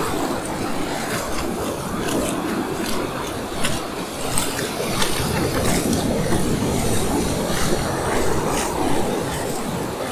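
Ocean surf breaking and washing up the sand in whitewash, a steady rushing noise that rises and falls with each wave.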